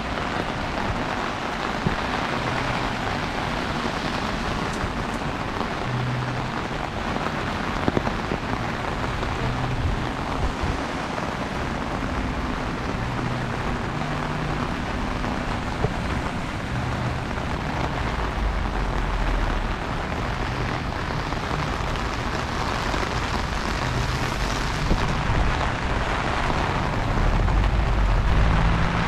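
Heavy rain falling steadily in a dense hiss, with a few sharp ticks and a low rumble that swells near the end.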